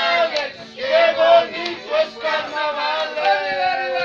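Group of voices singing an Andean carnival song, with high voices carrying the melody.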